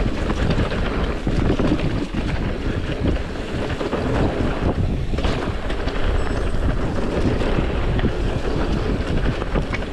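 Wind buffeting the action camera's microphone over the rumble of a mountain bike's tyres on a dirt and leaf-covered trail, with frequent small knocks and rattles from the bike over the bumps.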